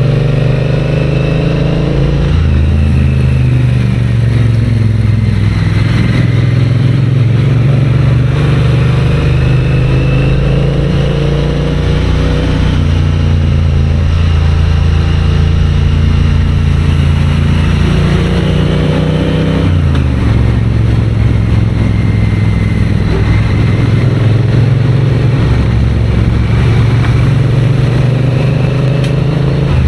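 Triumph Bonneville's parallel-twin engine running under way on the road, a steady loud note whose pitch shifts a few times, dropping clearly about twenty seconds in as the engine speed falls.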